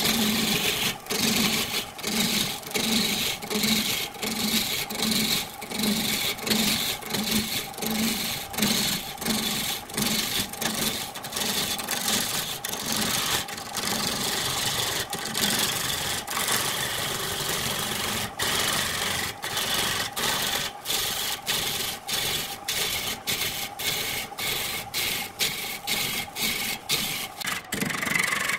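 Wood lathe running while a hand-held turning tool cuts into a spinning glued-up stack of wooden discs: a steady scraping cutting noise over the lathe motor's hum, pulsing about twice a second.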